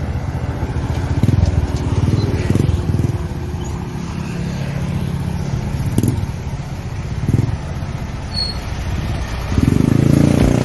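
A motor vehicle's engine running steadily, with a few short knocks along the way and a louder stretch near the end.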